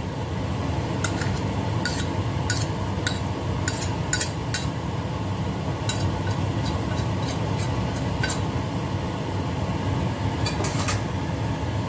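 A metal ladle clinking and scraping against a wok and a serving plate as sambal sauce is scooped out and spooned over fried fish. There are about fifteen light clinks over a steady low hum.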